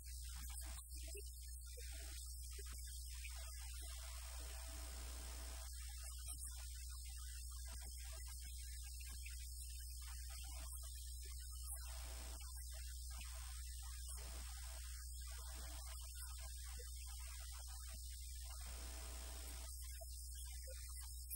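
Steady low electrical mains hum with a faint high hiss, unchanging throughout.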